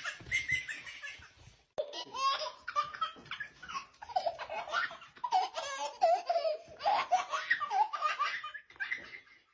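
A baby laughing hard in repeated bursts of belly laughter, with a short pause about a second and a half in.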